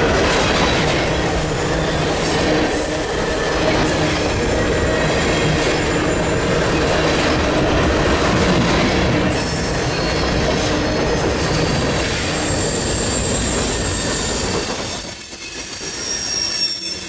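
CN grain train's hopper cars rolling past, steel wheels squealing on the curving track over the rumble of the cars. The high squeals come and go, and the sound eases a little near the end.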